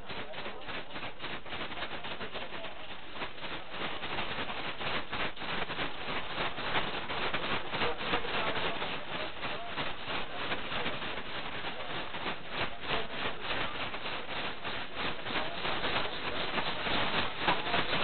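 Dense rattling and rubbing close to the microphone, in quick, irregular strokes that grow louder about four seconds in.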